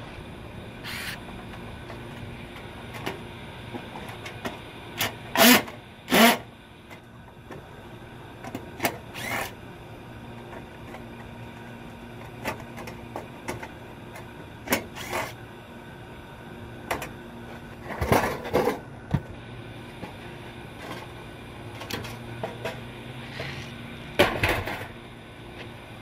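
Scattered metal clanks, knocks and rattles from an air-conditioner condenser's sheet-metal cabinet being dismantled by hand, its screws and panels coming off. Two sharp loud clanks come close together about five to six seconds in. Further bursts follow around a third of the way in, two-thirds of the way in and near the end, over a steady low background hum.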